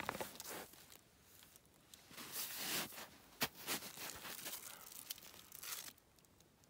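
Hands handling a hookah hose and its fittings: faint scraping and rustling in irregular bursts, with a single sharp click a little past the middle.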